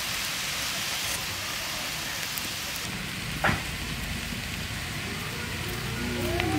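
Wild arum leaves and small shrimp sizzling as they fry in a metal wok, a steady hiss. There is a single sharp knock about three and a half seconds in.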